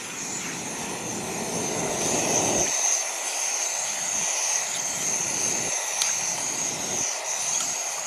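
MSR WhisperLite International liquid-fuel stove burning steadily under a pot of snow being melted for water, a constant rushing hiss. A deeper rush sits under it for the first two and a half seconds, then drops away.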